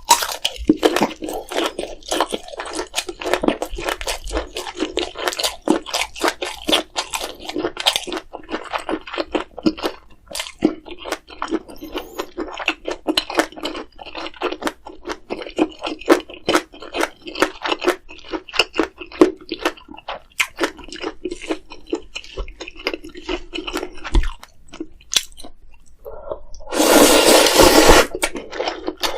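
Close-miked eating of instant ramyeon: dense wet chewing and smacking mouth sounds, then one loud slurp of noodles lasting about two seconds near the end.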